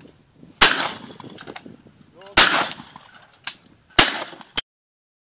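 Three shotgun shots at clay targets, about a second and a half to two seconds apart, each with a short ringing tail, and a fainter bang between the second and third. The sound cuts off suddenly about a second after the last shot.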